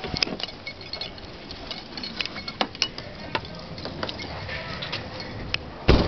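Scattered light clicks and rustles of a handheld camera and car-door hardware as someone climbs out of a car, ending in one loud thump as the car door shuts.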